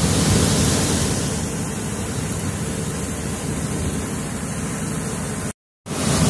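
Shelled corn pouring from an overhead bin load-out spout onto the pile in an aluminium grain trailer: a steady rushing hiss over a low steady hum. It breaks off for a moment near the end.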